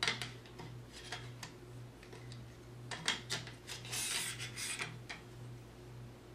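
Metal hardware clicking and scraping against an aluminum swift arm as a wooden yarn guide post and its sled are fitted on. A few sharp clicks at the start and about a second in, then a cluster of clinks and a short scraping rub around four seconds in, over a steady low hum.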